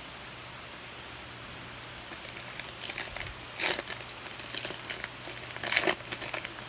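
Crinkling and rustling as trading cards and plastic are handled, starting about two seconds in as a run of small crackles, with two louder crinkles a little past the middle and near the end.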